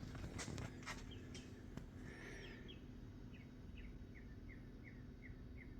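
A bird chirping faintly, a steady run of short falling chirps about two a second that starts about two seconds in, after a few light clicks near the start.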